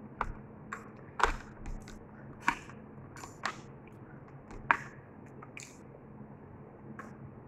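Eating at a plate: spoon and fork tapping and scraping on a ceramic plate, with chewing, as a scatter of short sharp clicks about once or twice a second that die away after about six seconds.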